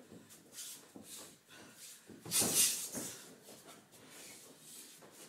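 Boxers sparring: shuffling feet and glove contact with short hissing bursts, the loudest about two and a half seconds in.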